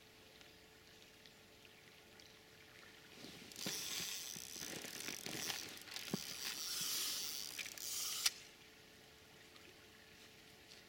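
Baitrunner reel's ratchet running as a fish pulls line off the bottom rod in a run (a bite). It starts about three seconds in, lasts about five seconds and cuts off suddenly.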